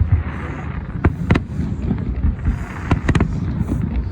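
Fireworks exploding: sharp bangs in close pairs about one and three seconds in, over a steady low rumble and a brief crackling hiss.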